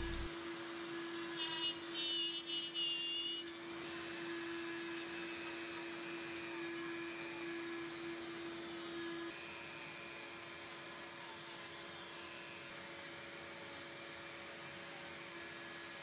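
Dremel 3000 rotary tool running steadily, its carving bit grinding away tupelo wood; the steady hum changes about nine seconds in.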